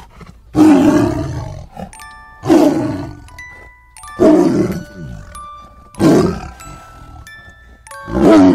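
Tiger roaring five times, one harsh, falling roar about every two seconds, with light chiming music tones between the roars.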